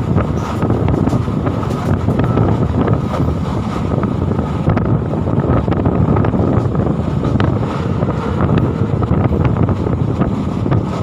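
Steady rumble of a moving passenger train, with wind buffeting the microphone and faint clicks running through it.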